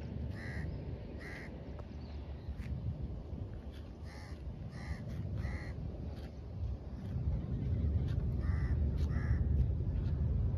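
A bird calling: about seven short calls in three groups, over a steady low rumble of wind on the microphone that grows stronger in the second half.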